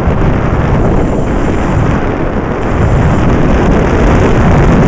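Wind rushing and buffeting over the microphone of a moving motorcycle, loud and steady, with the engine running underneath.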